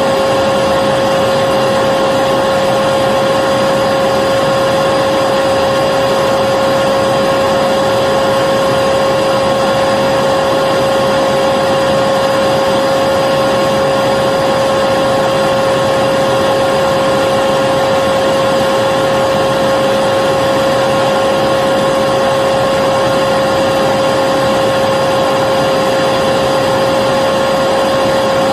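Vacuum cleaner running steadily: a constant motor-and-airflow rush with a steady whine on top, never changing in pitch or level.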